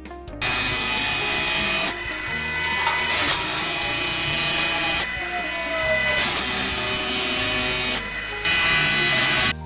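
Diamond saw blade of a CNC bridge saw cutting stone: a loud, harsh hiss with a faint steady whine in it. It starts about half a second in, dips in level three times, and stops abruptly near the end.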